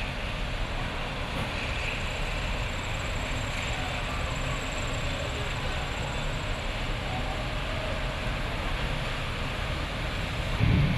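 Heavy rain pouring on a city street, a steady hiss mixed with the low rumble of passing traffic. A brief louder rumble near the end.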